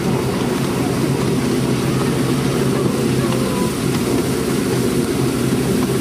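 Ride-on miniature railway train running along the track, heard from a passenger car: a steady low rumble.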